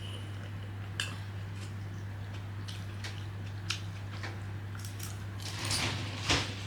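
Chopsticks clicking now and then against a dish, with a louder clatter near the end, over a steady low hum.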